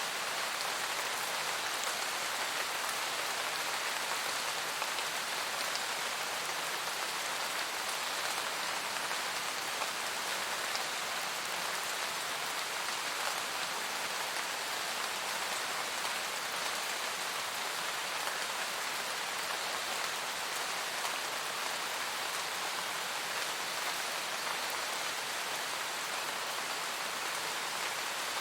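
Steady rain falling in a forest, a dense, even patter of raindrops on leaves and ground.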